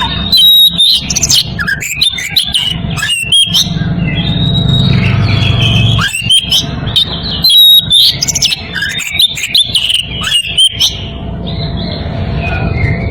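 Oriental magpie-robin (kacer) singing a loud, rapid, varied song of whistled notes and sharp chattering calls: the challenge song of a bird in breeding condition calling out a rival.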